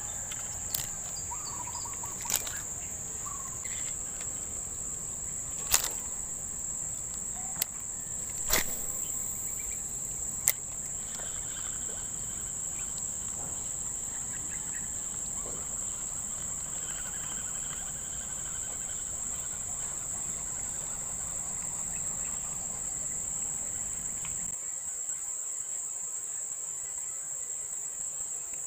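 Steady high-pitched insect drone, with a few sharp clicks in the first ten seconds and a low rumble that stops a few seconds before the end.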